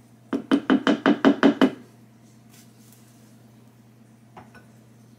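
Silicone spatula rapped against the rim of a mixing bowl of pancake batter, about eight quick knocks in under two seconds, knocking the batter off the spatula.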